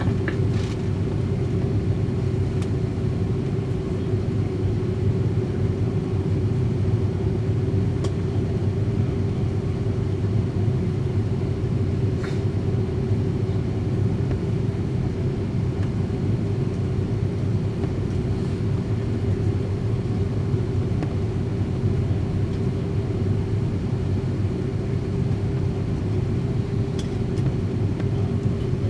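Steady low cabin rumble and hum of an Airbus A330-200's Rolls-Royce Trent 700 engines running at low power as the aircraft taxis or holds before takeoff, with a few faint clicks from the cabin.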